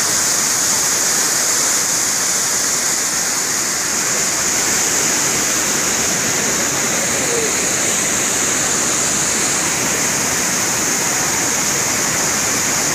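Waterfall cascading over boulders into a rocky mountain stream: a steady, unbroken rush of falling water.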